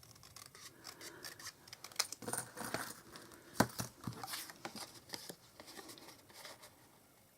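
Cardstock being handled: paper rustling and sliding, with light taps and clicks on the work surface, the sharpest about three and a half seconds in.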